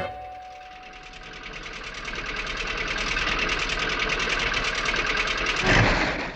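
Cartoon sound effect of a small car engine: a fast, even putter that grows louder as the car approaches. It surges briefly near the end, then cuts off.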